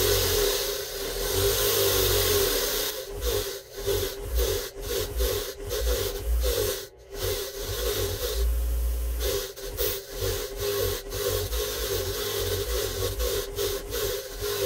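Lynus bench grinder's spinning wire wheel scrubbing rust off a small coil spring held in pliers: a steady harsh scraping over the motor's hum. From about three seconds in it breaks up into rapid short dips as the spring is shifted against the wheel.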